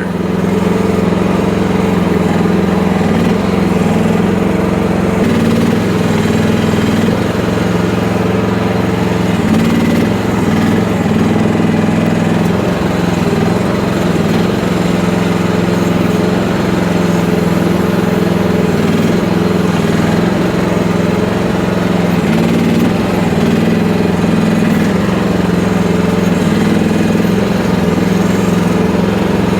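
FF12 mini excavator's small engine running steadily while the machine digs, its pitch wavering slightly under changing hydraulic load.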